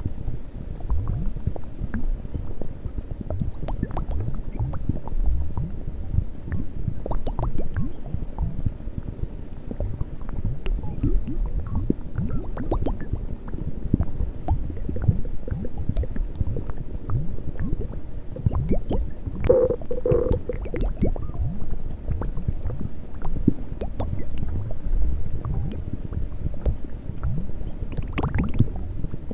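A woman's stomach growling and gurgling continuously, with many short low gurgles. A brief, higher-pitched growl comes about two-thirds of the way through.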